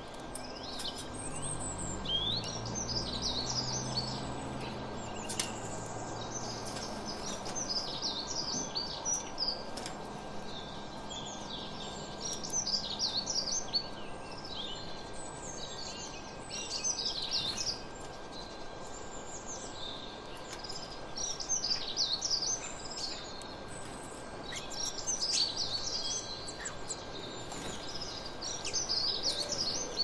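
Small songbirds singing: clusters of quick, high chirps and twitters recurring every few seconds over a steady outdoor background hiss. A faint low rumble fades out during the first several seconds.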